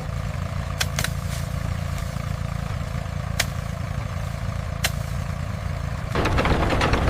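Factory machinery running with a steady low rumble and a few sharp clicks; about six seconds in it gives way to a louder, dense crackling clatter.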